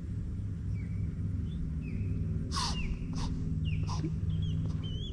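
A white-tailed deer snorting in alarm: three sharp, breathy blasts in quick succession about halfway through. Short high bird chirps come and go over a steady low rumble.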